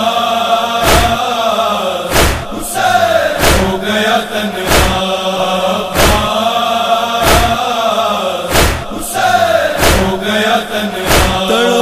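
Group chanting a Muharram noha refrain in a held, wavering melodic line, over rhythmic matam: open-hand strikes on the chest about every 1.3 seconds.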